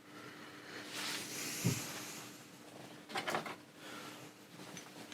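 Quiet handling noises of small tools and parts: a soft rustle with a thump about a second and a half in, then a cluster of small clicks and knocks about three seconds in, over a faint steady hum.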